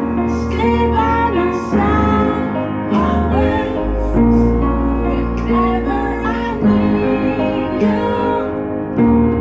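Piano played in a slow ballad, with a woman's voice singing the melody over it and a low bass note held in the middle.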